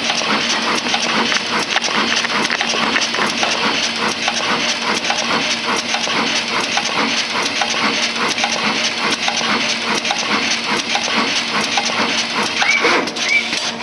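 SMD pick-and-place machine running: rapid, irregular clicking from the placement head and feeders over a steady hum and hiss, with two short rising squeaks near the end.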